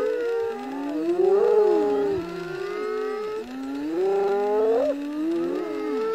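Spotted hyenas calling over one another: many overlapping calls that slide up and down in pitch, with one rising steeply about five seconds in.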